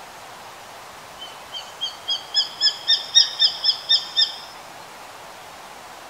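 Japanese sparrowhawk calling: a quick series of about a dozen short, high, slurred notes, about four a second. The notes grow louder through the series, which lasts about three seconds.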